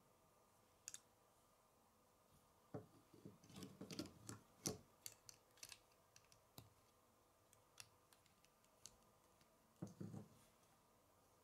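K'nex plastic rods and connectors clicking and rattling as they are handled and pressed together, with a quick run of clicks about three to five seconds in and a few more near the end.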